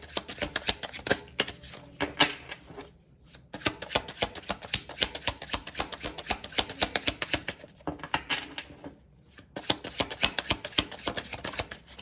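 A deck of tarot cards being shuffled by hand: fast runs of card clicks, in three spells with short pauses about three seconds in and again near nine seconds.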